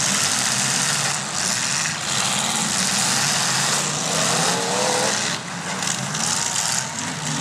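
Demolition derby cars' engines running loudly together, a dense rough noise with a brief wavering tone a little after four seconds.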